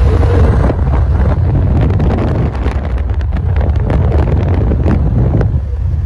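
Wind buffeting a phone microphone from a moving car, a loud, steady low rumble with road noise underneath.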